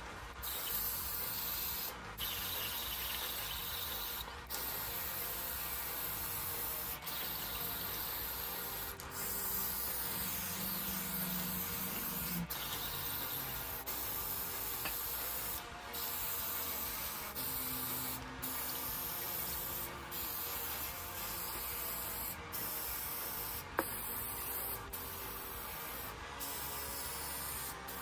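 Aerosol spray paint cans hissing steadily as paint is sprayed onto water, with brief breaks every second or two.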